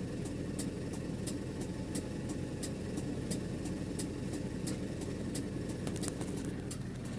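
Hydraulic excavator's diesel engine running steadily at working revs, with a light high ticking about three times a second.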